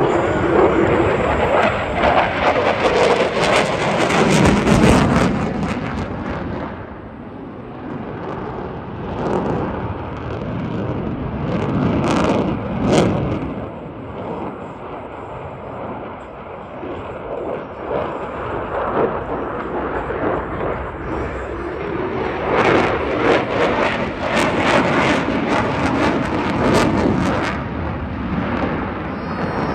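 Jet noise from an F-22 Raptor's twin F119 afterburning turbofans as the fighter flies its display manoeuvres. The rushing noise swells and fades: loud at the start, dropping back, peaking again about twelve seconds in, then building to a long loud stretch near the end.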